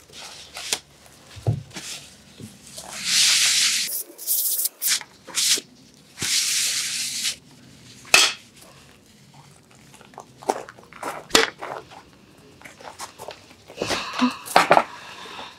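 A red plastic fly swatter slapping at flies on a wooden camp table: several sharp smacks, the loudest about eight seconds in and a cluster near the end, with two hissing rushes of about a second each earlier on.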